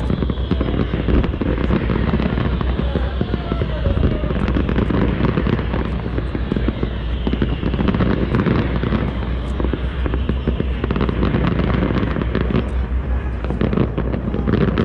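Aerial fireworks going off in a dense string of bangs and crackles.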